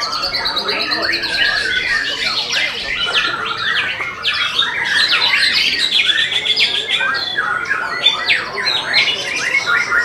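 White-rumped shama (murai batu) singing a fast, varied stream of whistles, chirps and rapid trills without a break.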